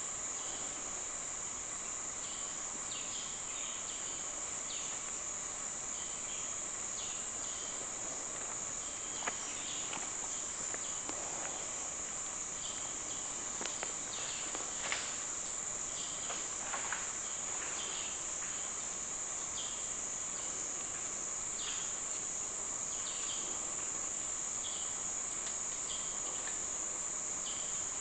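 Rainforest insect chorus: a steady high-pitched drone of insects, with short chirping calls scattered through it and a couple of soft clicks about nine and fifteen seconds in.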